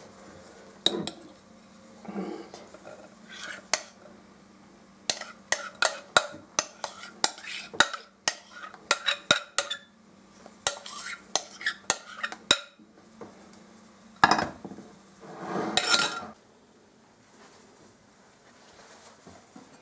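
Metal spoon clinking and scraping against a glass bowl in a quick, uneven run of taps, as thick sour-cream batter is scraped out over syrniki in a glass baking dish. A couple of brief rushing noises follow near the end.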